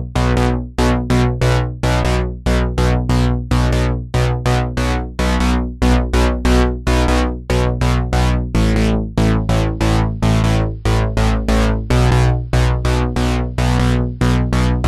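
Background music: a synthesizer and keyboard track with a fast, steady pulse of repeated notes over a held bass.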